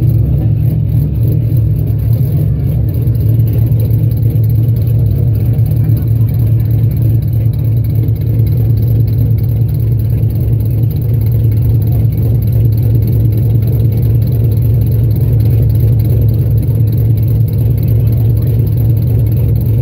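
Modified Ford Mustang's exhaust idling with a loud, steady low rumble.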